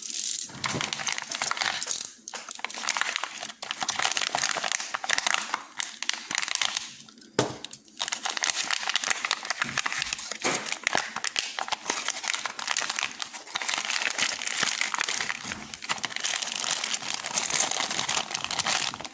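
Plastic packaging of a new lock crinkling and crackling as it is cut and pulled open with a blade, a dense run of small crackles and clicks broken by brief pauses.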